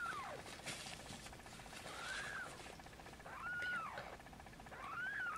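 Newborn Snowshoe Siamese kitten mewing: four short, high cries, each rising and then falling in pitch, about a second and a half apart.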